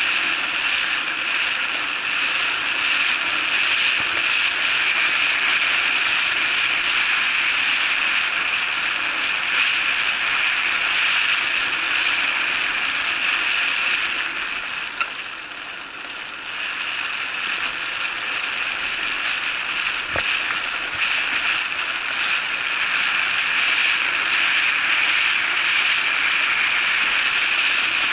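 Electric bike riding along a dirt trail: steady tyre noise and rattling of the bike's parts, which ease off for a couple of seconds about halfway through, with a single knock there.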